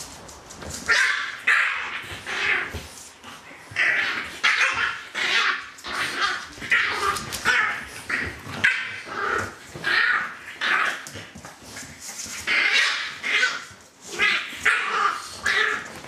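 French bulldog puppies barking and yipping at play: a string of short barks, roughly one or two a second, with a brief pause near the end.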